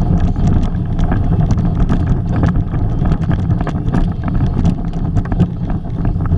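Wind buffeting the microphone: a steady, loud low rumble, with scattered small clicks and knocks over it.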